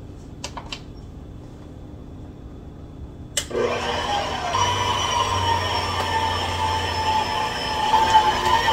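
Electric stand mixer switched on about three seconds in, its motor running with a steady whine as the dough hook mixes flour into a stiff bread dough.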